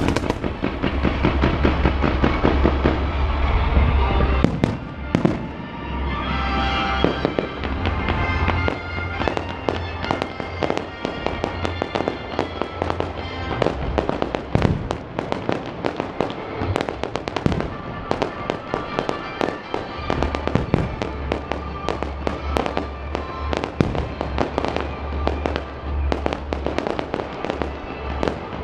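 Fireworks show: many fireworks going off in rapid succession, a dense run of bangs and crackles, over loud music with a heavy bass.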